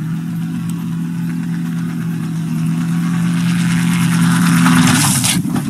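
Gyroplane engine running steadily at power and growing louder on its takeoff run. Near the end comes a loud rushing, scraping noise as the gyroplane rolls over and its rotor hits the ground, and the engine note breaks off.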